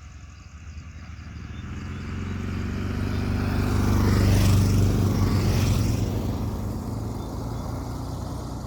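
A motor vehicle driving past: its engine hum and road noise grow louder, peak about four to five seconds in, then fade away.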